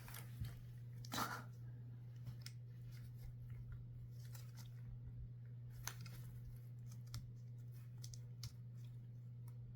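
Faint scattered clicks and rustles of a balisong knife being handled, over a steady low hum.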